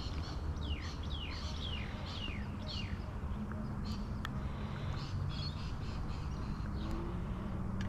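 A bird calling a quick series of about five falling notes in the first three seconds, with a few scattered chirps afterwards, over a steady low rumble.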